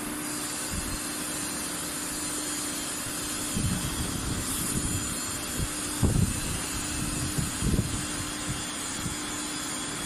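Vertical injection molding machine running with a steady hum and hiss, with a few low knocks and clunks from about the middle on.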